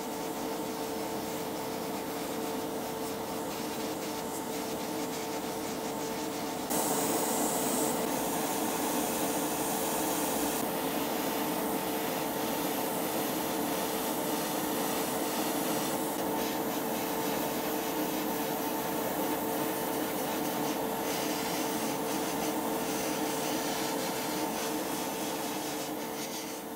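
Airbrush hissing as it sprays paint onto small model parts, over a hobby spray booth's extractor fan running with a steady hum. The hiss grows louder and brighter about seven seconds in for a few seconds.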